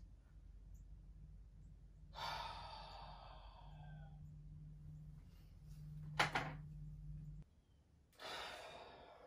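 A man sighing heavily, once about two seconds in and again near the end, with a sharp knock about six seconds in that is the loudest sound; a low steady hum cuts off suddenly a little after it.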